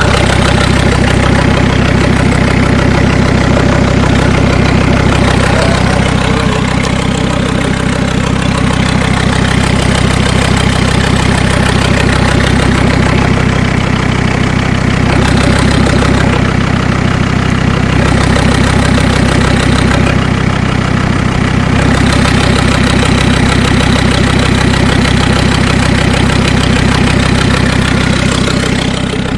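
Mercedes 2.7 CDI five-cylinder diesel idling steadily with a knock, which the owner thinks comes from the hydraulic lash adjusters.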